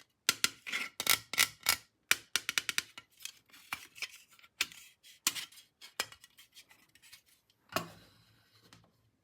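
Small toy parts clicking and clattering as they are handled, in quick irregular taps, with one heavier knock near the end.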